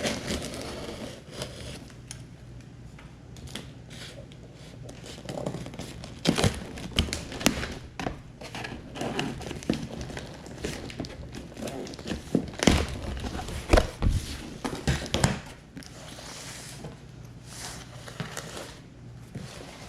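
Cardboard shipping box being opened by hand: packing tape tearing, cardboard and packing material crinkling and rustling, with irregular knocks and thunks as the box is handled, busiest about a third of the way in and again past the middle.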